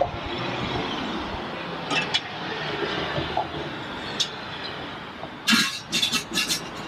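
Busy-street background hum with a few sharp clicks and clatters, and a quick run of them about five and a half seconds in.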